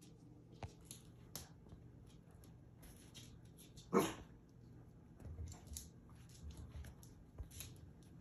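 A dog gives one short, sharp bark about four seconds in, with scattered faint clicks and taps around it.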